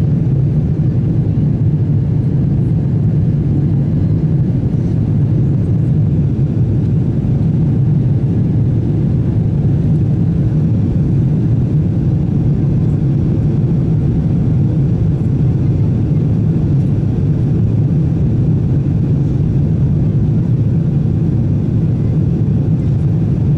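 Steady, loud drone inside a jet airliner's cabin in flight: engine and airflow noise, strongest in a low hum.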